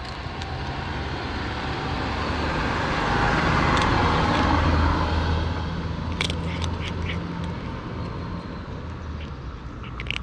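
A car passes by, swelling to its loudest about four to five seconds in and then fading away. A cat chews dry kibble, making a few crisp crunches around six seconds in and again near the end.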